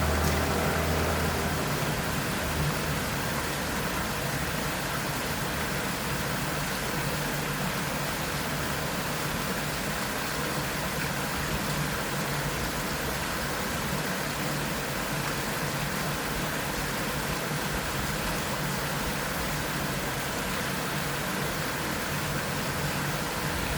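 Small waterfall's water rushing steadily. A low rumble at the start fades out within about a second and a half.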